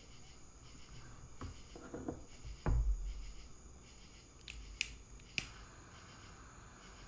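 Tabletop handling sounds: two low thumps, then two sharp clicks a little over half a second apart, followed by a soft steady hiss.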